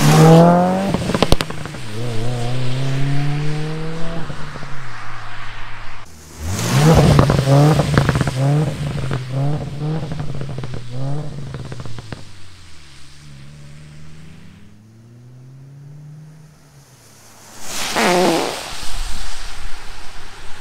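Subaru WRX turbocharged flat-four revving hard and then dropping off throttle with the clutch held in. The exhaust pops and crackles in a rapid string of sharp cracks as the revs fall, loudest between about six and twelve seconds in. Near the end a vehicle passes with a rising and falling rush.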